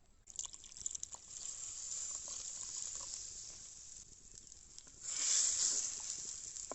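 Hot pan of sautéed spices sizzling as thoothuvalai stem juice is poured in. The sizzle swells louder about five seconds in.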